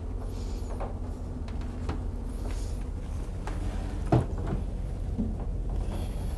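A few light knocks and taps of hands and objects on a sheet-metal workbench, the sharpest about four seconds in, over a steady low hum.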